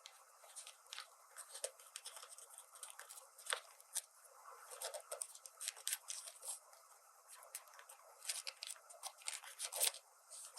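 Irregular small clicks, taps and light rustles of toy pieces and packaging being handled and opened, with no steady rhythm.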